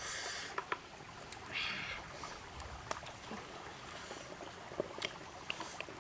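Eating by a crackling wood fire: two short slurping hisses, near the start and about a second and a half later, over scattered small pops and clicks.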